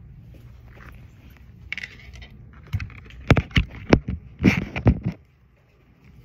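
Phone handling noise as the phone is turned around and set in place: a cluster of sharp knocks and scraping rubs, loudest between about three and five seconds in.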